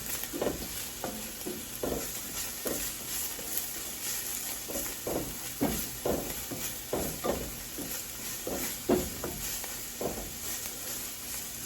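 Sliced onion and ginger sizzling in hot olive oil in a pan, with a steady hiss, while a utensil stirs and scrapes through them in short strokes about every half second.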